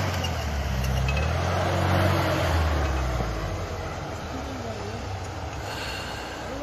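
Engine of an old Jeep-style 4x4 running under load as it drives slowly through deep snow. About three seconds in the engine sound drops away as the vehicle slows and settles near idle.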